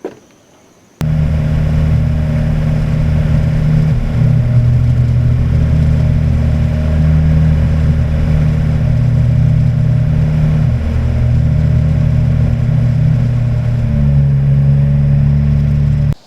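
Small boat's outboard motor running steadily under way, with wind and hull noise. It comes in suddenly about a second in, its note shifts slightly near the end, then cuts off abruptly.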